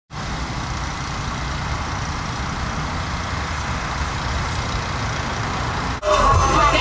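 Steady low rumble and hiss of an engine running at an even level. About six seconds in, it cuts suddenly to louder music with singing.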